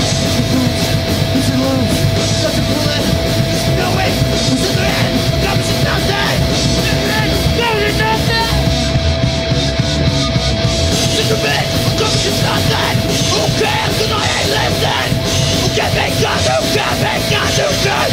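Punk band playing live: loud distorted electric guitars and fast drums, with a singer yelling into the microphone.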